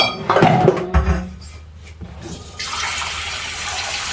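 Pans knocking together, then water running steadily from a kitchen tap into a large cooking pan, starting about two and a half seconds in.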